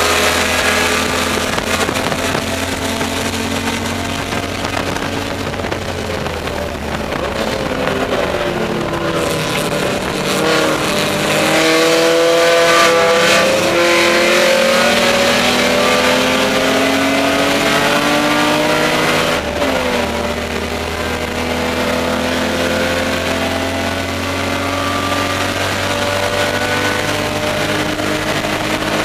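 BMW E30 race car's inline-six engine at full racing load, heard from inside the stripped cabin over wind and road noise. Its pitch falls about six seconds in, climbs again, drops sharply about twenty seconds in, then climbs steadily.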